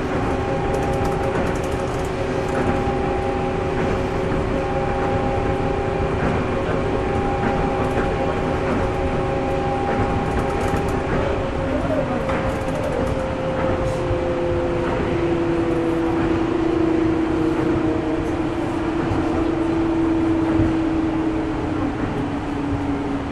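Running noise heard inside a Yui Rail 1000-series straddle-type monorail car: a steady rumble from the running gear with several steady motor whine tones above it. In the second half the whine tones glide slowly down in pitch as the train slows.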